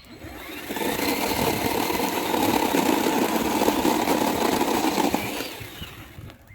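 An engine passing by: it builds up over about a second, holds steady for about four seconds, then fades away.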